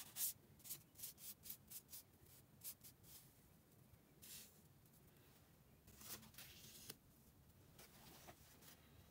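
Faint handling of small paper cards on a flat surface: a run of light ticks and taps, then soft rustles as cards are slid and laid down.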